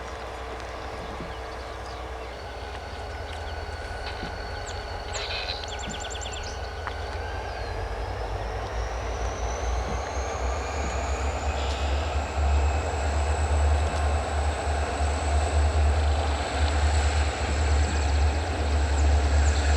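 Diesel locomotives rumbling and growing steadily louder, with a thin high whine that rises in pitch about a third of the way in and then holds steady.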